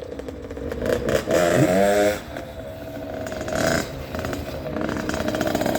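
Small 50cc-class off-road engine revving as it is ridden, its pitch rising sharply about a second in and then settling to a steady run. It sounds clean and responsive after a carburettor O-ring and fuel fix.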